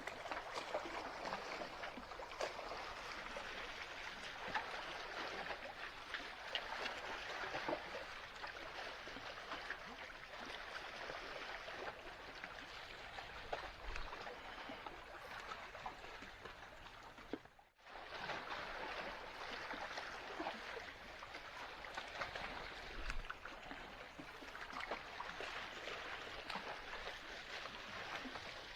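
Sea water lapping and trickling along the shore: a steady wash with faint small splashes. It cuts out for a moment about eighteen seconds in.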